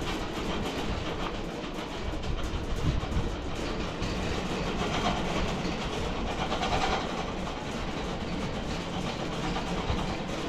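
Home-built wide bandsaw mill running steadily, its band blade cutting through an acacia log.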